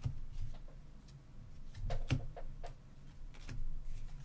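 Basketball trading cards being slid and flipped through by hand: scattered light clicks and taps, the sharpest about two seconds in, over a low steady hum.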